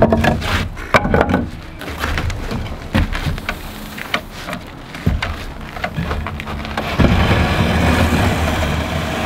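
Light wooden framing lumber knocking and clattering against other frame pieces and the wooden deck boards as the frames are lifted and stood up. There are several sharp knocks in the first three seconds, and a denser scraping noise from about two-thirds of the way in.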